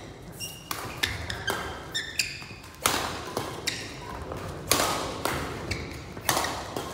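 Badminton rackets striking a shuttlecock in a fast doubles rally: sharp cracks about once or twice a second, the loudest near the middle, with short high squeaks from shoes on the court floor between the shots.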